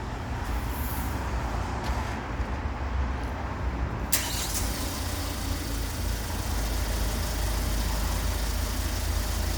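Hyundai Grand Starex van's engine started by an aftermarket remote starter and running at idle. About four seconds in there is a sharp click, and a steady hiss comes in and holds.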